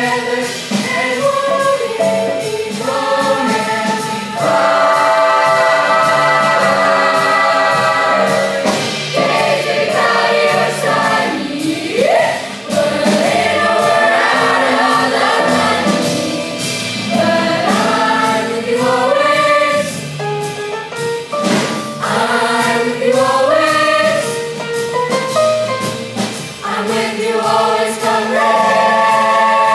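Middle-school jazz choir singing in close harmony through handheld microphones: held chords that change every second or two, with a rising vocal slide about twelve seconds in.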